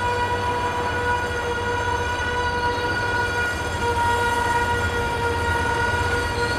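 Slow-moving freight train of tank cars giving a steady, high metallic squeal at one pitch with overtones, over a low rumble.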